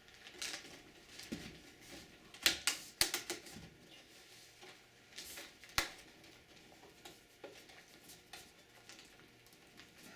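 The case cover of an Acer Acros 486 desktop computer being worked loose by hand: scattered clicks, knocks and scrapes, the sharpest about two and a half, three and six seconds in. The cover is jammed on one side.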